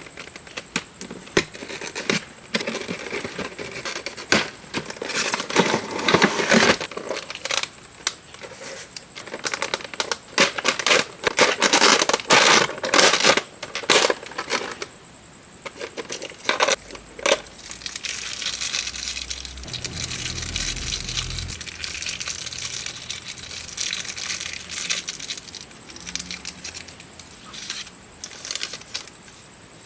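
Packaging being handled and opened: a box and its plastic and paper wrapping crinkling and tearing, with many sharp clicks and knocks, then steadier rustling in the second half.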